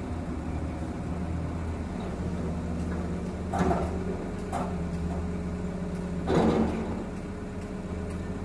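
Engine running steadily at idle, a low even hum heard from inside a vehicle cabin. A few brief louder sounds break over it, the loudest about three and a half and six and a half seconds in.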